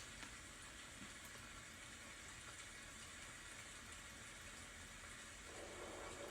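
Faint, steady rain, an even hiss, with a fuller, lower patter joining about five and a half seconds in.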